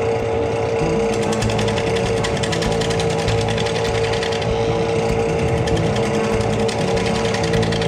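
Wood lathe spinning a silver maple and epoxy resin bowl while a turning tool trims its top rim: a steady hum with a fast rattling chatter from the cut.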